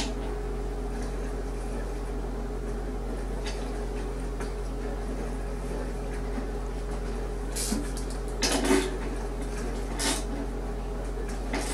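A few metal clicks and knocks from a socket wrench giving the drum spider's retaining bolts a final tightening, over a steady low hum. The loudest short cluster of clicks comes about eight and a half seconds in.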